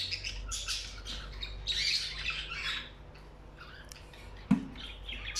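Budgerigars chattering and squawking in short high-pitched calls, with one sharp knock about two-thirds of the way through.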